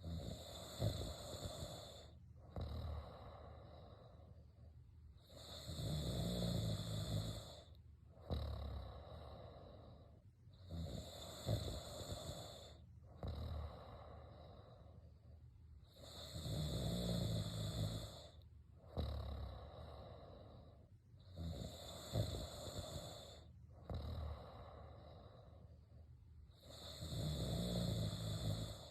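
Snoring, with a snore every two to three seconds; several of the snores are longer and louder than the rest.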